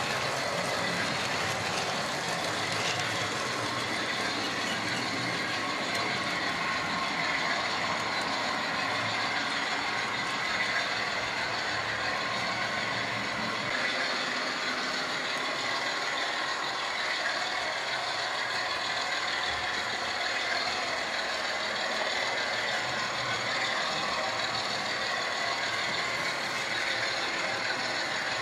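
Model trains running on the layout: electric motors and wheels on the rails make a steady mechanical whirr and rattle, with a lower rumble that eases off about halfway through.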